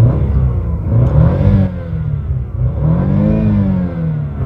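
A BMW's car engine being revved in park, its pitch rising and falling with each blip of the throttle, the longest rev climbing and falling back in the second half.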